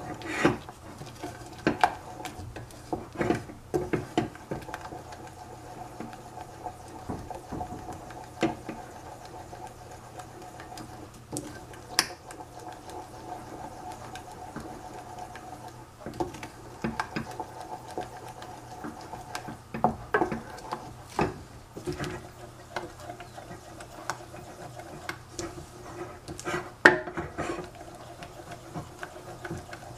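Wooden spoon stirring thick melted dark chocolate in a small stainless steel saucepan, knocking and scraping against the pan in irregular clicks, with the loudest knock near the end. A faint steady hum runs underneath.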